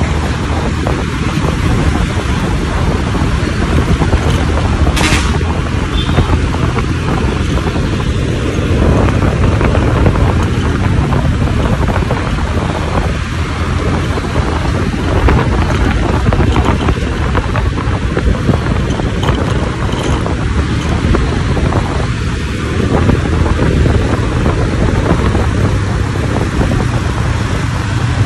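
Wind rushing over the microphone with the steady running and road noise of a motor scooter riding through city traffic.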